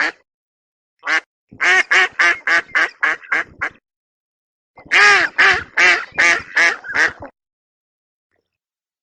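Duck quacking: one quack, then two quick runs of about seven or eight quacks each, the second run starting loud and fading.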